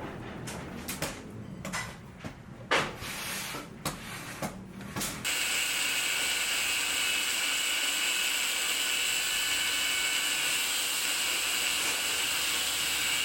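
Scattered knocks and clicks. Then, about five seconds in, a power tool starts running steadily with a hissing, high whine at an even level, and it stops abruptly near the end.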